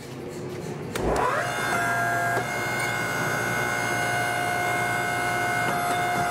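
Electric motor of a Coal Iron Works power hammer starting up about a second in: a whine rises quickly in pitch, then holds as a steady multi-tone hum.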